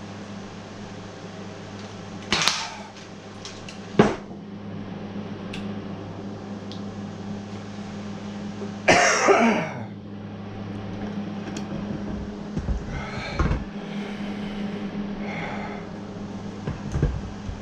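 A man's breathy coughs and sharp exhales while he struggles with extremely hot Carolina Reaper ramen, the loudest lasting about a second around the middle. A steady low electrical hum runs underneath, and there is a single sharp click about four seconds in.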